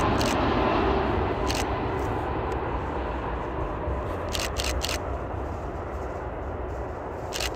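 Boeing 747-400's four jet engines on final approach, a steady rushing roar that slowly fades as the airliner passes and moves off toward the runway. Camera shutter clicks cut in: one about a second and a half in, a quick burst of three around four and a half seconds, and two more at the end.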